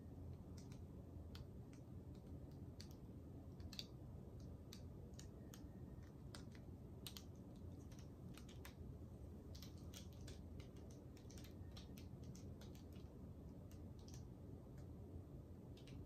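Faint, irregular light ticks of fluid acrylic paint dripping off a tilted canvas onto the paper-covered table, coming thickest in the middle stretch, over a low steady hum.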